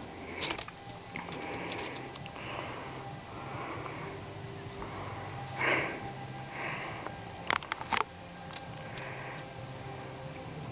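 Close sniffing from the dog and goat nosing at each other: short puffs of breath about once a second, the loudest about halfway through. A quick run of three sharp clicks follows a couple of seconds later.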